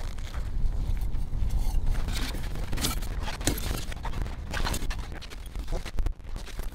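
Irregular crunching and scraping in snow and ice, about one stroke a second, over a steady low rumble.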